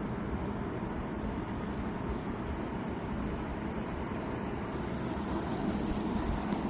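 Steady, even rumble of a kayak running under a 1 hp Water Snake electric guide motor, with the noise of wind and water as it moves.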